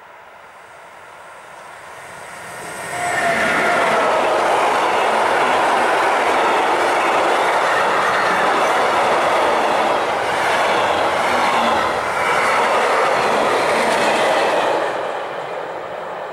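DB Class 152 electric locomotive and its long freight train passing close by. A faint approach swells to a loud, steady rumble and rattle of wagon wheels on the rails about three seconds in, lasts for about twelve seconds, then fades as the train goes by near the end.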